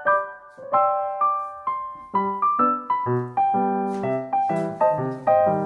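Background piano music: a melody of single struck notes that fade after each strike, joined by lower bass notes about two seconds in.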